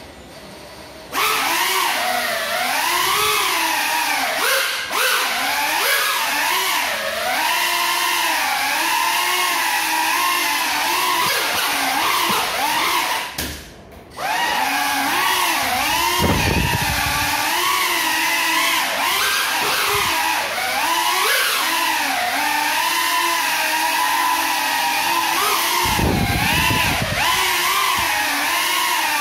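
FPV micro quadcopter's motors and propellers whining, flown on broken propellers. The pitch rises and falls constantly with the throttle. The whine cuts out for about half a second near the middle while the drone is down on the floor, then spins back up. Two brief low rumbles come later on.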